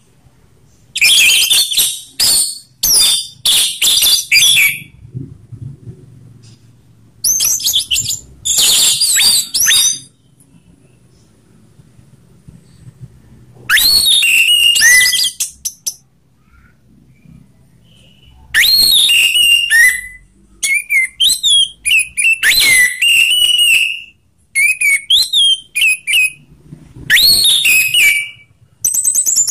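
Orange-headed thrush singing its loud full song in phrases with short pauses: in the first ten seconds, dense fast high warbling; later, a run of short clear whistled notes that drop in pitch, each followed by quick high twitters.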